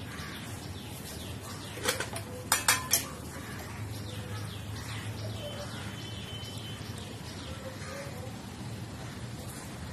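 Four sharp metal clinks of utensils about two to three seconds in, over faint birds chirping in the background.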